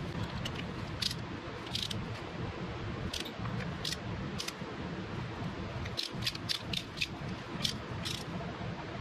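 Ratchet of a torque wrench on an extension clicking as the stator bolts are run down toward 12 to 14 newton meters: scattered single clicks, then a quick run of about five clicks around six seconds in, and two more near the end.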